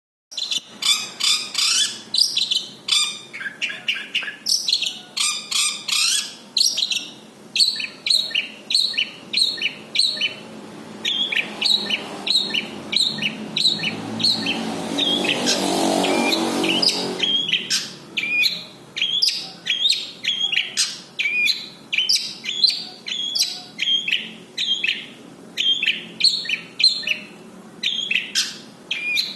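Long-tailed shrike singing a fast, unbroken string of short chirps and trills packed with mimicked calls of other birds. A rushing noise swells up under the song around the middle and stops suddenly.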